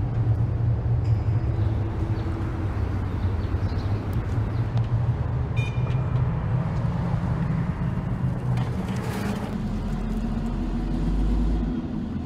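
Steady low rumble of a motor vehicle, with a deeper hum joining for about two seconds near the end.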